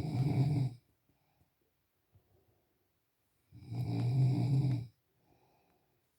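Snoring: a loud buzzing snore that ends just under a second in, then another from about three and a half seconds to five, with a faint soft breath after it.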